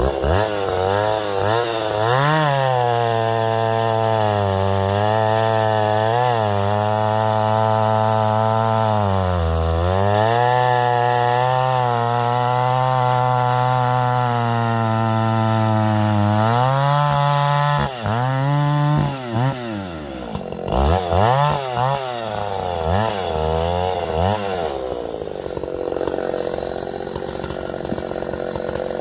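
Vintage Husqvarna L65 two-stroke chainsaw running at high revs while cutting ash firewood, its pitch dipping briefly now and then under load. About eighteen seconds in, the revs swing sharply up and down several times before the engine settles to a rougher, lower run.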